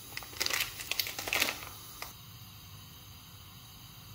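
Crinkling and rustling of a plastic packet of dried vermicelli being handled, in a few short bursts during the first second and a half. After that there is only a faint steady background hiss.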